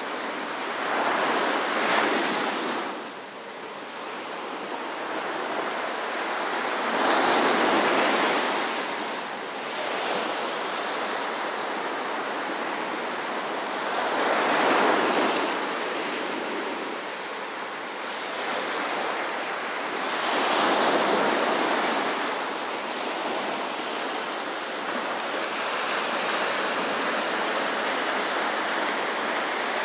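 Small ocean waves breaking and washing up a sandy beach. Each surge swells and fades about every six or seven seconds, over a steady surf hiss, and the surges are less marked near the end.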